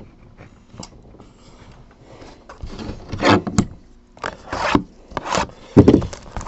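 Plastic shrink wrap being torn and peeled off a sealed box of trading cards: a run of short rasping tears starting a little over two seconds in, loudest near the end.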